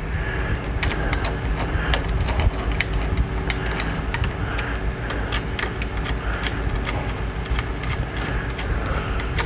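Irregular metallic clicks and ticks, several a second, from a hand tool turning a bolt as a motorcycle handlebar clamp is screwed back down, over a steady background hum.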